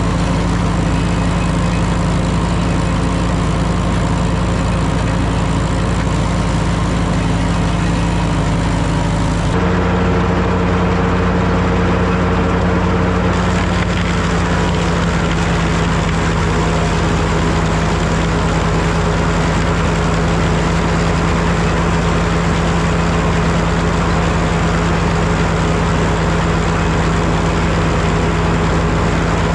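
Super W-6 tractor's four-cylinder engine running steadily under belt load, powering an antique planer. About nine seconds in the sound shifts abruptly and a new steady hum joins in.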